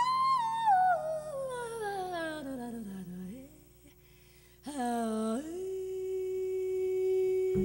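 Solo female voice singing wordlessly: a high held note slides slowly down about two octaves. After a short pause, a new note scoops upward and is held steady.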